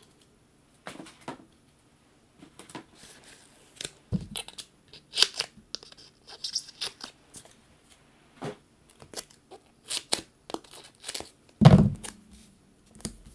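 Paper and foam adhesive being handled: short rustles, clicks and peeling, tearing sounds as a paper piece is raised with foam pop-up adhesive. Two dull thumps stand out, about four seconds in and near the end.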